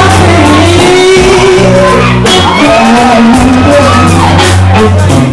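Live blues-rock band playing a slow number: two electric guitars with notes bending in pitch over held bass notes and drums, played loud.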